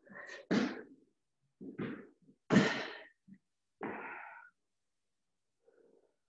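A person breathing hard from exercise: four forceful exhales in quick succession, each sharp at the start and trailing off.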